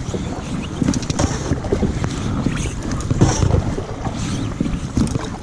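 Wind buffeting the microphone aboard a john boat being paddled by hand, with a few splashy paddle strokes in the water. No motor is running: the trolling motor's battery has gone dead.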